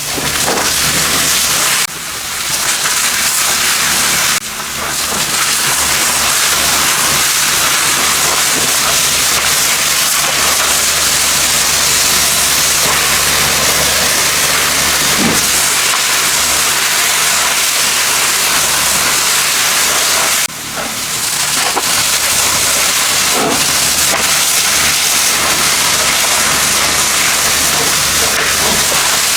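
Loud, steady hiss of a high-pressure spray gun in use, cut off and restarted briefly three times.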